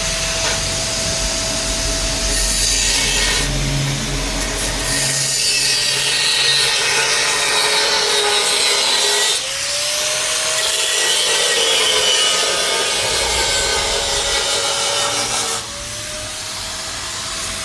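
Angle grinder working metal: a steady harsh grinding noise with a motor whine that sags under load. It dips briefly and picks up again twice, about halfway and near the end.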